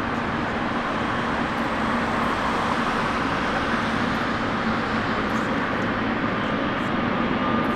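Jet airliner engines running, a steady roar with a faint hum and whine that slowly grows louder.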